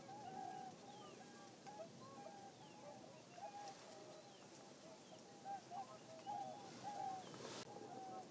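Many birds calling at a distance: a steady stream of short, clear, mid-pitched notes that overlap one another, with faint higher chirps mixed in. A single sharp click comes near the end.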